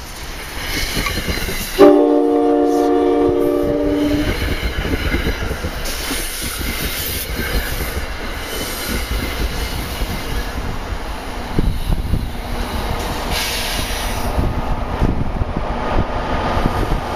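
NJ Transit commuter train passing close by: one long multi-note horn blast about two seconds in, then the steady rumble of the passing coaches, with the clicking of their wheels over the rail joints.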